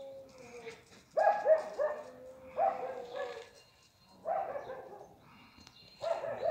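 A dog barking repeatedly, in short barks that come in small groups about a second apart.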